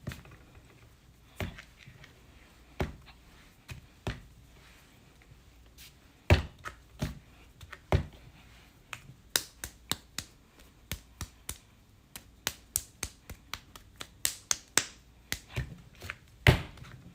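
Hands slapping and patting a lump of soft clay into shape on a work surface: sharp slaps, a few spaced apart at first, then quicker, two or three a second, from about halfway through.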